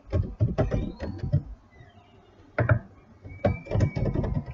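Computer keyboard typing: short runs of rapid keystrokes with pauses between, one run in the first second and a half, a few keys about two and a half seconds in, and another run near the end.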